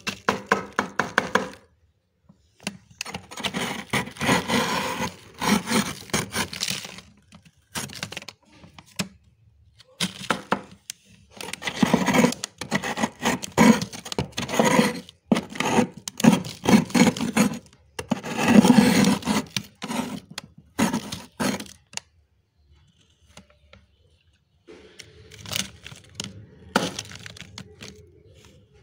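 Metal curry spoon scraping thick frost from inside a freezer: runs of crisp crunching and cracking as the frost breaks away in chunks, with short pauses between strokes and softer scraping near the end.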